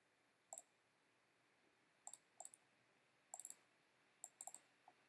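Faint clicking of a computer mouse, a dozen or so short clicks at irregular intervals, some in quick pairs like double-clicks, with near silence between.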